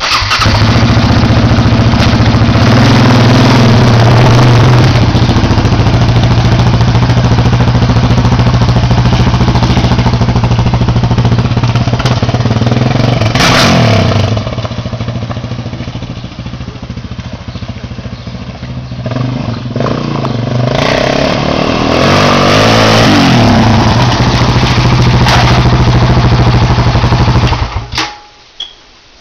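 Yamaha Raptor 700R quad's single-cylinder four-stroke engine starting up and running loud, revving as it pulls away about halfway through. It fades as the quad rides off, grows louder again as it comes back, and is switched off abruptly near the end.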